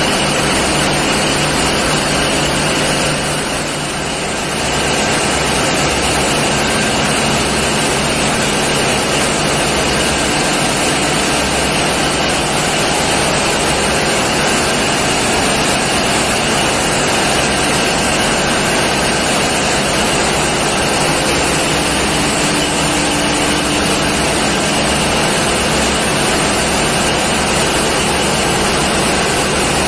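Steady, loud drone of diesel engines running in a tugboat's engine room, a dense machinery noise with a low hum. It eases briefly a few seconds in.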